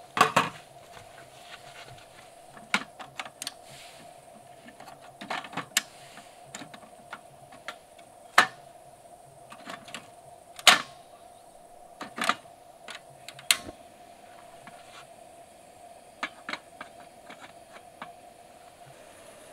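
Irregular clicks and light knocks of small objects being handled, the sharpest at the very start and about eleven seconds in, over a faint steady drone.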